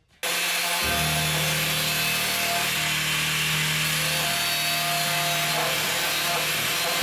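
A power tool grinding or abrading steel: a loud, steady rush of abrasion over a running motor's hum. It starts abruptly about a quarter of a second in and holds steady.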